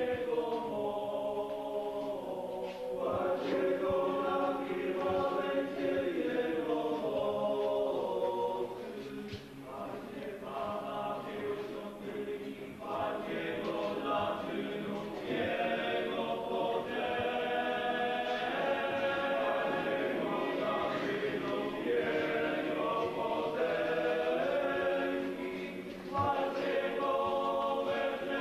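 A group of voices singing a slow hymn together in a church, with long held notes, easing off briefly about nine seconds in before carrying on.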